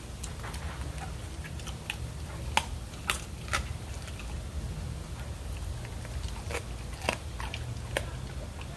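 A Doberman chewing and crunching chicken wings, with irregular sharp crunches, a few much louder than the rest.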